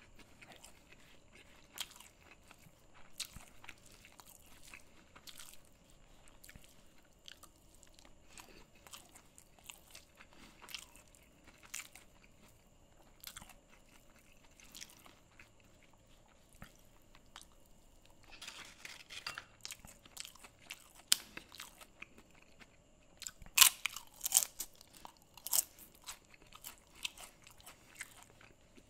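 Close-up ASMR eating sounds of a person eating a rice-and-curry meal by hand: quiet, scattered mouth clicks and chewing. Late on comes a short run of much louder, crisp crunches.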